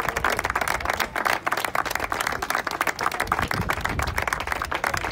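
A small group of people clapping, a dense, steady patter of hand claps.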